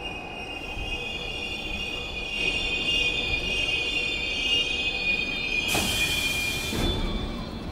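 Subway train running with a high metallic squeal of several steady tones that rises slightly in pitch over the first couple of seconds and holds. A short hiss comes about six seconds in.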